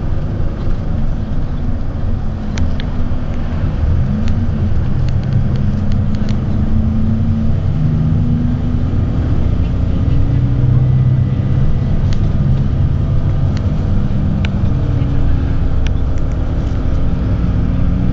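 Loud, steady low engine rumble with several droning tones that slowly shift in pitch, and a few sharp clicks scattered through it.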